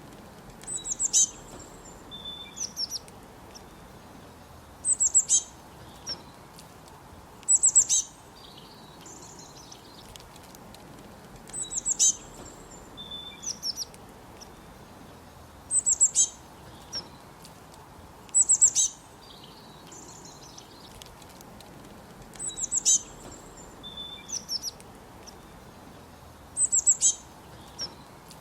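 Bird song in a forest: a bird repeats short, high-pitched phrases of quick descending notes about every three to four seconds, over a faint steady background hiss.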